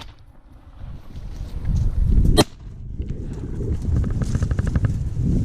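A single shotgun shot about halfway through, sharp and sudden, over a steady low rumble.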